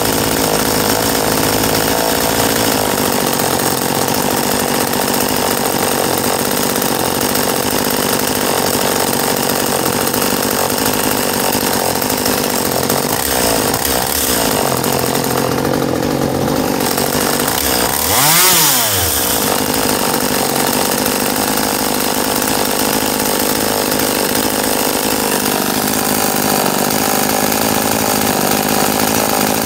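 Stihl top-handle two-stroke chainsaw idling steadily at about 3,100 rpm while its carburetor is being tuned. About 18 seconds in, its pitch and loudness briefly surge, then settle back to the idle.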